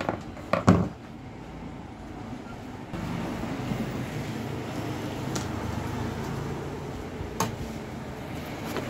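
A few sharp knocks of a metal screwdriver against the amplifier's steel chassis and the wooden bench about half a second in, as the old speaker socket is worked loose. About three seconds in a steady low mechanical rumble sets in and carries on, with a couple of faint clicks.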